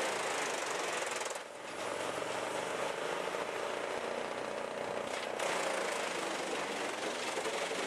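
A motor-driven machine running steadily with a dense, rattling mechanical noise. It drops out briefly about a second and a half in and changes tone around five seconds in.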